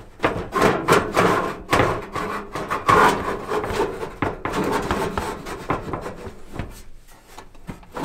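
Suburban NT-16se RV furnace being wiggled and slid out of its cabinet: irregular scraping and knocking of the unit against its housing, quieter near the end.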